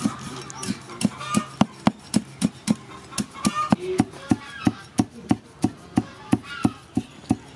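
Cleaver chopping sliced green leaves on a wooden log chopping block, a steady knock about three times a second. Chickens cluck in the background between the strokes.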